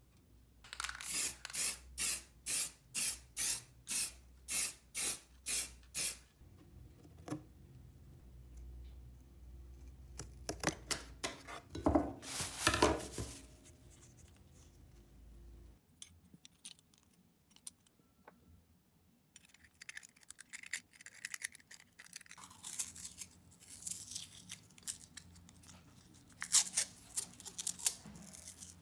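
Hand scraping strokes on a workpiece: about two strokes a second for the first five seconds, then a few louder strokes, then quieter, irregular scraping and rubbing.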